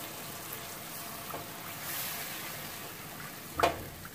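Milk sizzling steadily in a non-stick frying pan with sautéed onion and garlic, stirred with a plastic spoon; the spoon clacks once against the pan near the end.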